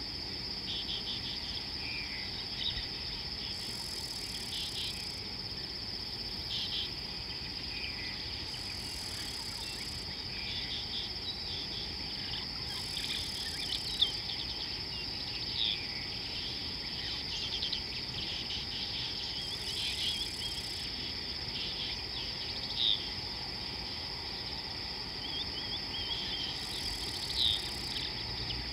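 A steady, shrill insect chorus holding one high pitch, with scattered short bird chirps and ticks over it and a higher hiss that swells and fades every few seconds.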